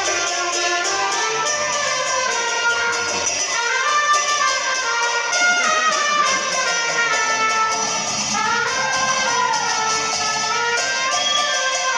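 Two trumpets playing a cumbia melody together over the steady beat of a bombo murguero (murga bass drum).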